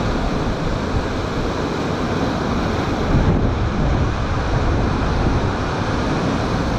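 Storm surf breaking and washing on the shore, with strong wind buffeting the microphone.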